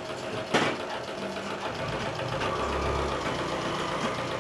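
Merritt treadle sewing machine being treadled, running with a steady, rapid, even clatter. A sharp knock sounds about half a second in.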